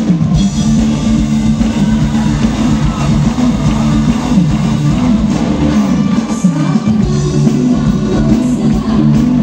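A live praise band playing amplified through the stage loudspeakers, heard from far back in the crowd: a full rock-style band with guitar and a strong bass line, with singing over it.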